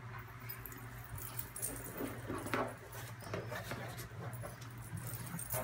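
Soft handling sounds: a hand on a cardboard gift box and its ribbon, with scattered light rustles and taps and the faint jingle of charm bracelets, over a low steady hum.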